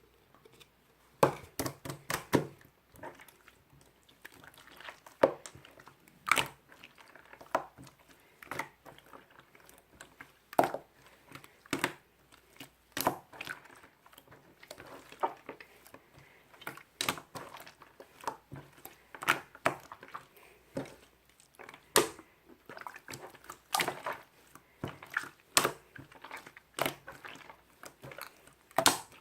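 Slime being squeezed and pressed by hand, making irregular sticky clicks and air-bubble pops, some single and some in quick clusters.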